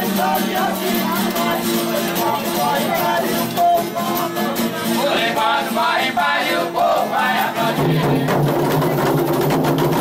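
Folia group singing in several voices over pandeiros and drums beating a steady rhythm; a new, lower sung line comes in near the end.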